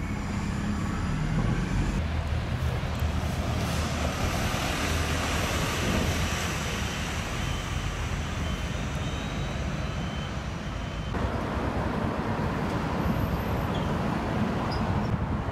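Road traffic on city streets: a steady rumble of passing cars and buses, with engine hum low down. The sound changes abruptly twice, about two and eleven seconds in.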